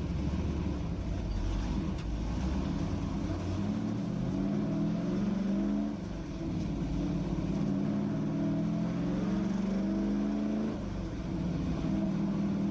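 Race car engine with no mufflers, pulling hard and climbing in pitch through the gears, with a brief dip at each shift about six and eleven seconds in.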